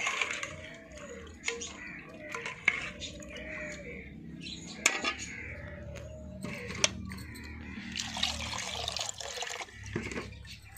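Metal ladle stirring soaked chickpeas, spices and water in a metal cooking pot (degchi): liquid sloshing, with sharp clinks of the ladle against the pot every second or two and a heavier splashing stretch near the end.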